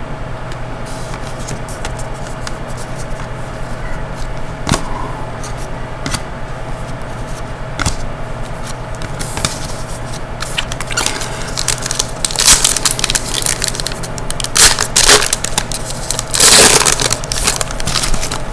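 Trading card packs and cards being handled, with crinkling wrapper and rustling paper sounds and light clicks that grow busier and louder in the second half, over a steady low hum.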